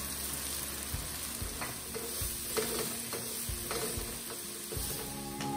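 Wooden spatula stirring onions, green chillies and spices in a non-stick wok over a steady frying sizzle, with irregular knocks and scrapes against the pan. Faint music comes in near the end.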